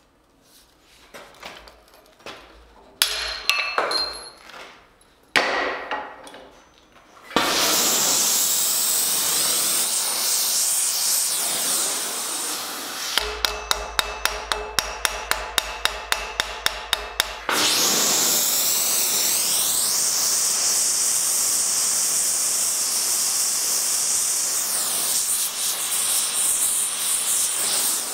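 Sharp metal snaps and clanks, with two louder ones a few seconds in, from bolt cutters working on steel rod at the anvil. A loud steady rushing noise then starts suddenly. Partway through it comes a quick run of ringing hammer blows on hot steel held in tongs on an anvil, about four a second for some four seconds.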